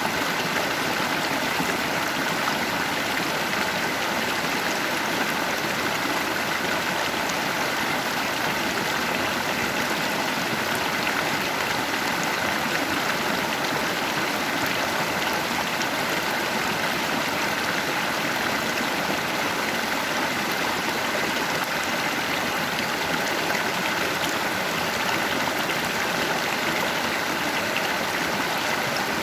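Steady rushing of a stream's current flowing over rocks, an even continuous water noise with no breaks.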